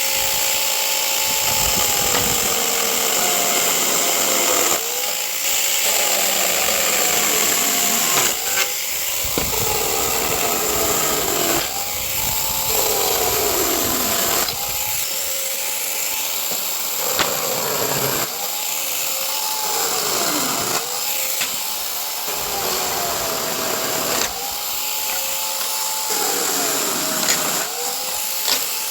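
Chainsaw running at full throttle, cutting through pallet wood: its engine note drops each time the chain bites under load and climbs back as it frees, over and over through a series of cuts.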